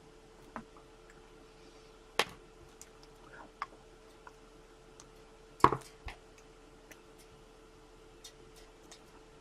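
Scattered light clicks and taps, with two louder ones about two and five and a half seconds in, over a faint steady hum.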